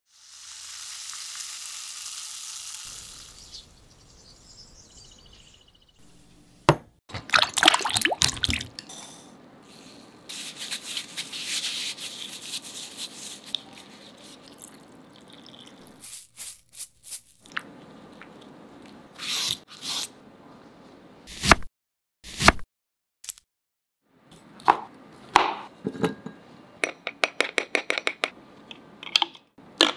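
A run of drink-making sounds: carbonated water fizzing over cut fruit in a glass jar for the first few seconds, then a lemon being scrubbed with water dripping into a glass bowl, and near the end a small spoon stirring matcha paste against a glass bowl in quick taps, with clinks and knocks between.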